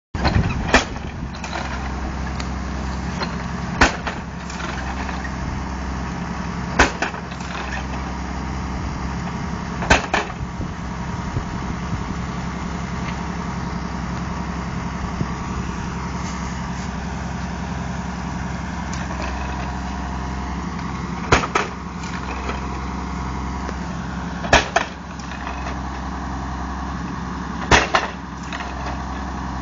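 Tractor-mounted post driver hammering wooden fence stakes into the ground: a sharp bang about every three seconds, with a pause of about ten seconds in the middle, over the steady running of the tractor engine that powers it.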